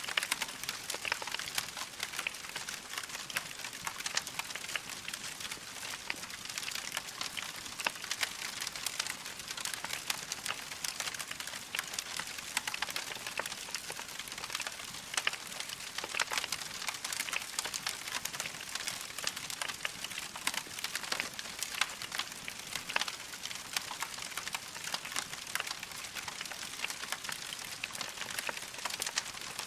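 Wood fire crackling in a fireplace: a dense, steady stream of small crackles and pops.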